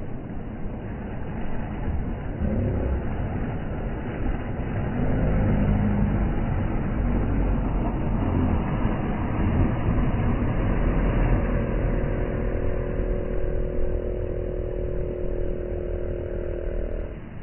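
Boat outboard motor running over the wash of small waves, its rumble growing louder through the middle. A steady engine tone comes in about two-thirds of the way through and stops just before the end.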